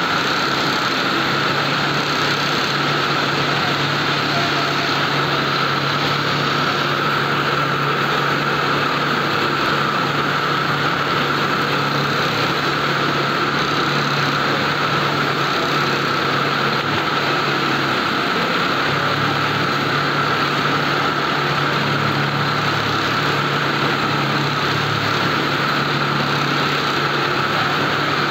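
Industrial Juki sewing machines for woven polypropylene bulk bags running with a steady, unbroken motor hum and whirr.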